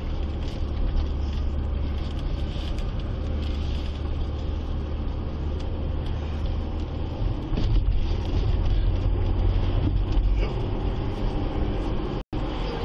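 Car driving, a steady low engine and road rumble heard from inside the cabin, growing louder about halfway through. The sound cuts out for an instant near the end.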